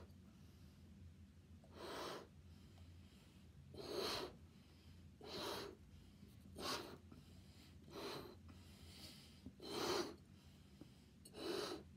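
A boy blowing up a rubber balloon by mouth, heard as seven separate breaths, one about every one and a half to two seconds.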